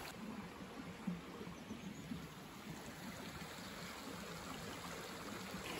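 Faint, steady rushing of flowing water from a stream, with a couple of soft low knocks in the first second or so.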